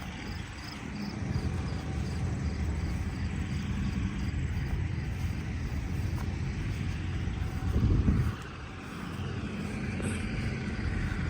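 A vehicle engine running with a steady low drone. It gets louder about a second in, peaks briefly and drops away sharply at about eight seconds, then builds again near the end.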